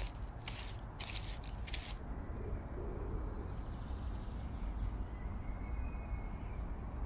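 Footsteps crunching on a dirt path, about two steps a second, stopping about two seconds in. After that comes a steady low rumble, with a faint thin tone for a moment near the end.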